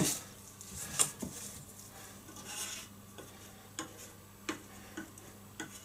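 Light handling sounds as Titebond wood glue is squeezed from its bottle and spread by hand along the edge of a pine body blank: a few small sharp ticks and taps, with a soft brief rub about two and a half seconds in.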